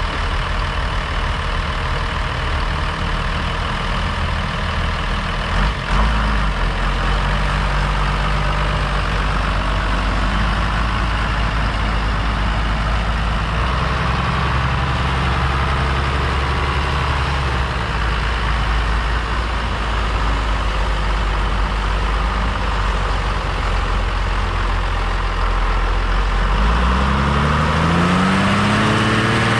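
John Deere 3650's 5.9-litre six-cylinder diesel engine running steadily at low revs, then revving up near the end. A single click about six seconds in.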